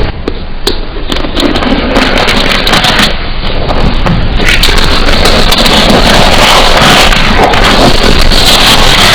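Loud, close-miked crunching and crackling of eating, with many sharp clicks running together into a dense noise.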